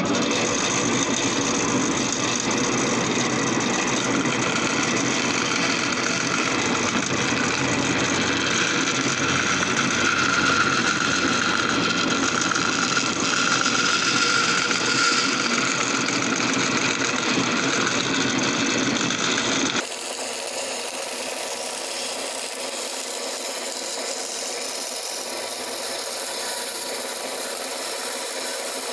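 A power tool running steadily while working wood. After a sudden cut about two-thirds of the way through, it gives way to quieter, even scraping of a rasp or file rubbing on wood.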